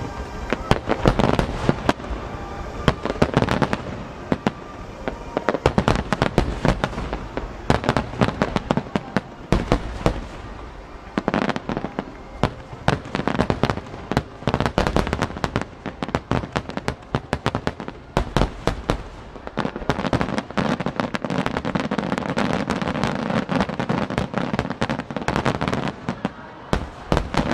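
Fireworks display: aerial shells bursting one after another in rapid, overlapping bangs with crackle. The bangs thicken into a near-continuous barrage from about three quarters of the way through.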